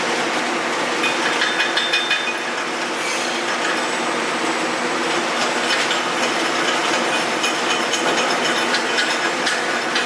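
Steady machine hum with irregular clicking and crackling throughout, typical of welding-shop equipment at work.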